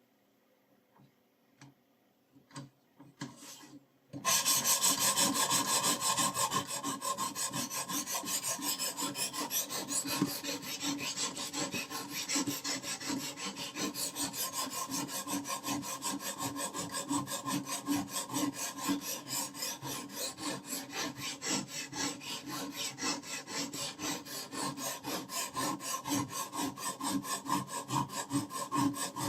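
Knife blade being stroked back and forth on a sharpening stone in rapid, even, rasping strokes, starting suddenly about four seconds in after a few faint clicks.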